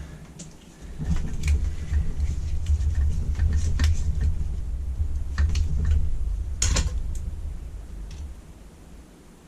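Scattered clicks and knocks of metal parts and tools as a Weber carburettor is taken apart by hand, over a low rumble that fades out near the end.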